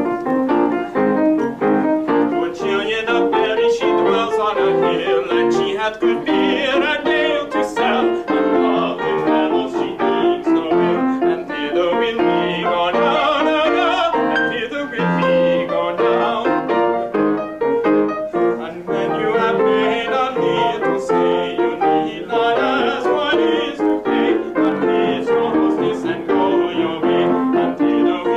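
Piano music playing throughout, with many quick notes.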